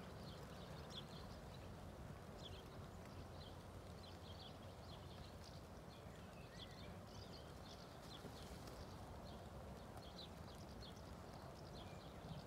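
Faint outdoor ambience: the soft hoofbeats of a ridden horse on a rubber-chip arena surface, with small birds chirping throughout.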